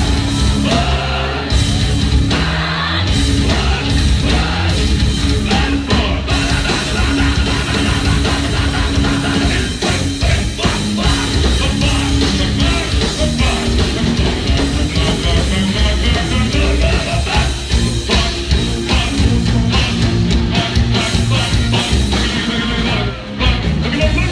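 Live heavy metal band playing loud and steady: distorted electric guitars, bass and drums, with sung and yelled vocals.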